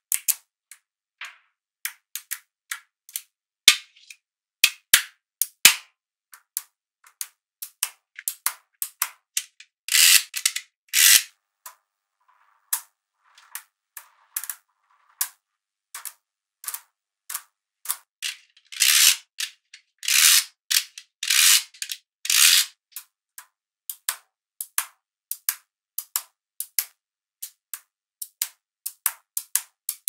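Small magnetic balls snapping together in sharp, irregular clicks, one after another. A few times they set off a short rattling run of clicks.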